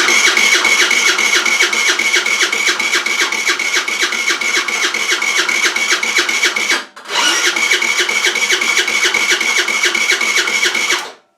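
Rex RS500 scooter's four-stroke engine being turned over by its electric starter, in two long cranks with a brief pause about seven seconds in. It spins freely with an even, rapid pulse and a steady starter whine, but does not fire.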